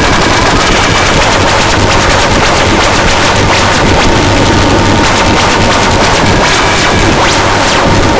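Harsh industrial noise music: a dense, distorted wall of noise at full loudness, with rapid crackling stutter and a faint steady tone running through it.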